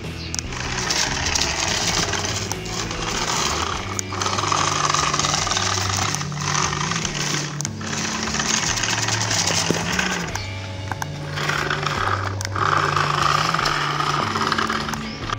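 Background music with a stepping bass line.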